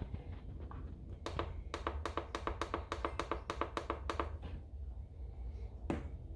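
Instant Pot IP-LUX control panel beeping with each press of its button as the cook time is set: a quick, even run of short beeps, about six a second, for some three seconds, then one more beep near the end.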